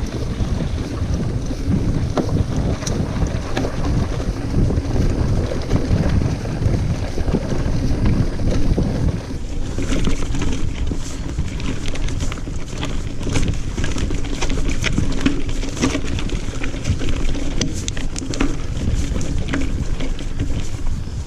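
Wind buffeting a GoPro action camera's microphone over the steady rumble of single-speed hardtail mountain-bike tyres rolling on dirt singletrack. From about ten seconds in, frequent sharp clatters and ticks from the bike over rocky, rough ground.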